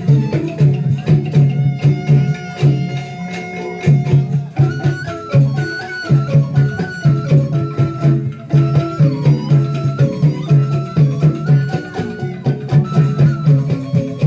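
Traditional folk music with percussion: a low note pulsing several times a second under a higher melody line that steps up and down.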